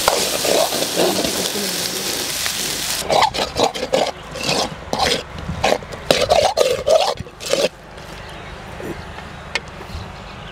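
Lobster pieces, onions and chillies sizzling in a steel pot as they are stir-fried. From about three seconds in, irregular knocks and scrapes mix with short pitched calls, and just before eight seconds the sound drops abruptly to a much quieter background.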